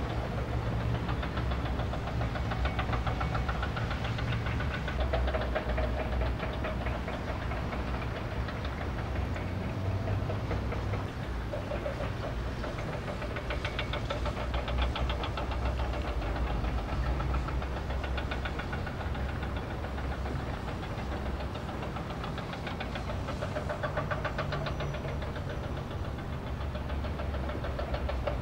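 An engine running steadily: a low hum with a fast, even rattling knock over it.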